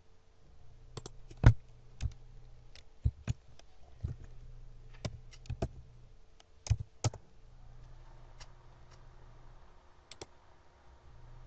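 Computer keyboard keystrokes typing out a search, irregular clicks for about six seconds, then a quick pair of clicks near the end, over a faint low hum.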